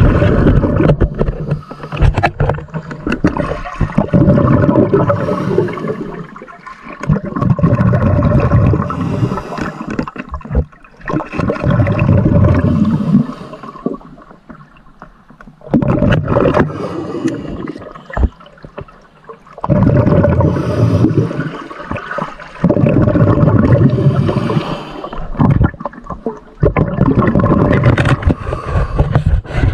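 Water churning and gurgling in loud, irregular surges, broken by a few short quieter gaps.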